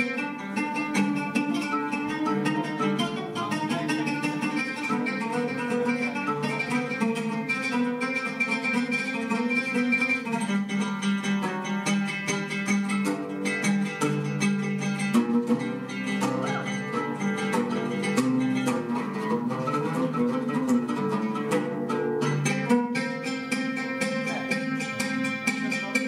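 Solo oud, fast and dense picking of many notes over sustained low strings.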